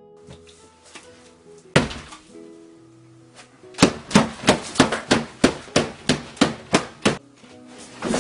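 Hands slamming down hard onto a plate of food on a table: one heavy smack, then a fast run of about a dozen smacks, three or four a second. Light acoustic guitar music plays underneath.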